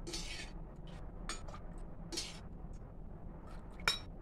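Faint clinks and soft scrapes of steel cookware, a steel bowl of drained frying oil being moved beside a steel kadai, with one sharper clink near the end, over a low steady hum.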